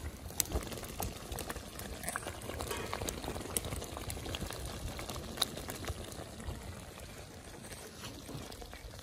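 Pot of rice boiling and bubbling while a metal skimmer is stirred through it, with scattered small clicks throughout.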